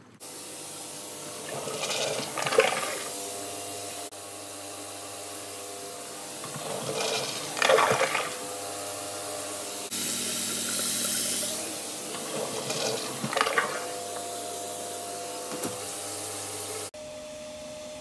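A toilet flushing, with water rushing through the drain pipes; the rush surges three times over a steady hiss.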